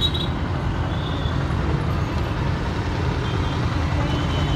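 Mixed road traffic passing close by, mostly motorcycles and scooters with a three-wheeler and cars: a steady rumble of engines and tyres. Faint horn beeps sound in the distance about a second in and again near the end.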